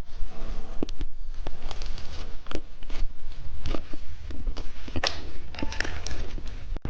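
Close-up crunching and chewing of hard candy: irregular sharp cracks and clicks of the candy breaking between the teeth.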